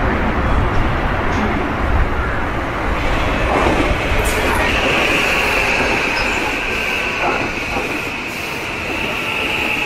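JR West 323 series electric train running past close by, with a heavy rumble of wheels on rail. From about five seconds in, a steady high-pitched squeal joins it.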